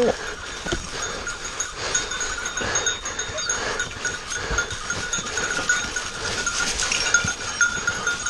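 Hunting hounds worrying a downed wild boar in dry leaves: scuffling, tugging and rustling of leaves, over a steady high bell-like ringing.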